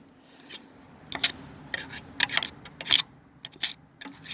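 Irregular light clicks and taps from hands working on parts in a lawnmower's engine compartment, about a dozen over a few seconds.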